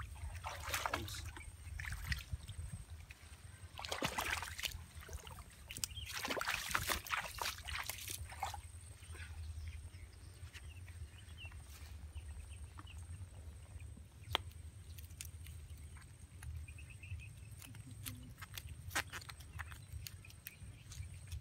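Feet wading through shallow water and mud, sloshing in several bursts over the first eight seconds or so. After that the sloshing gives way to quieter squelches and scattered clicks, with a sharp click about 14 seconds in, over a steady low rumble.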